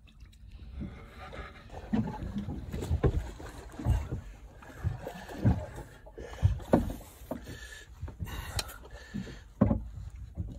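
Irregular low knocks and rubbing as a baitcasting reel is cranked against the pull of a heavy fish. The knocks come every half second to a second from about two seconds in.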